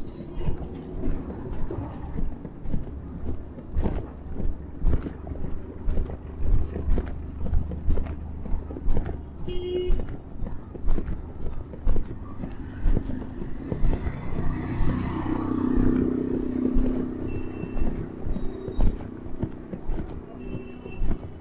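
Footsteps of someone walking on a paved street, about two steps a second, over a steady low rumble of street traffic. About two-thirds of the way through, a louder stretch of street noise rises and fades, and a few short high beeps sound.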